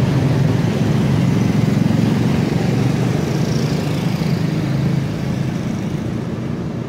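Small motorcycles passing close by on a wet road, with steady street traffic behind. The engine noise is loudest for the first few seconds and eases off after about five seconds as the road empties.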